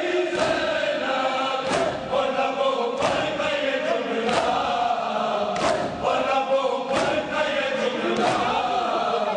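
A crowd of men chanting a noha in unison, with a sharp collective slap of hands on bare chests (matam) landing in time about every 1.3 seconds, seven times.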